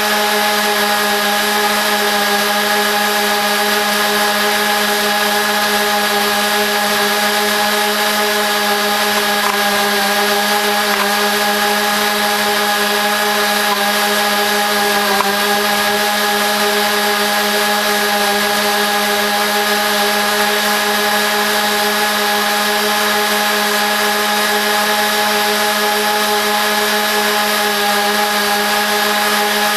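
Lawn mower engine running steadily while cutting grass, played back four times fast, a constant pitched drone with a slight dip in pitch about halfway through.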